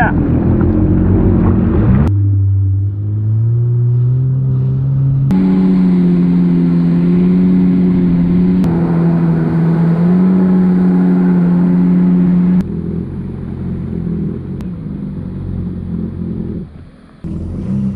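Yamaha WaveRunner engine running under way at speed with water and wind noise, mostly at a steady pitch, rising for a few seconds early on as it accelerates; the tone and loudness change abruptly several times.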